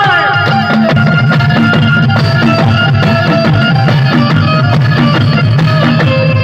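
Instrumental break in a Gujarati devotional folk song: drums keep a steady beat under held melody notes, with no singing.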